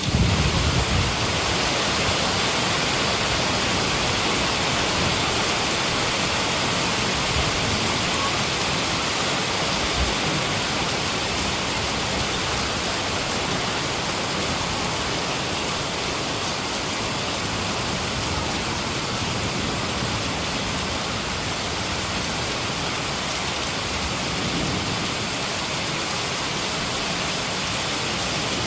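Heavy rain falling steadily in a dense, even hiss, with a brief low rumble right at the start.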